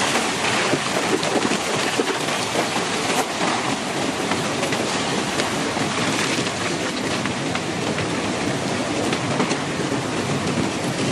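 Steady, dense rush of heavy rain or pouring water, with many small ticks through it.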